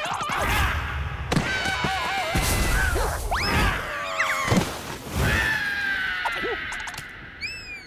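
Animated cartoon soundtrack: squeaky, swooping character vocalizations and comic sound effects with several thuds, over music.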